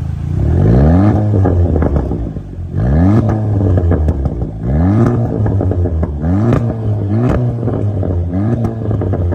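Audi TT Mk3 revved repeatedly while parked, through a T1 valved cat-back exhaust with its valves open. There are about six quick blips, each rising and falling back, the first held longest, with pops and crackles from the exhaust as the revs drop.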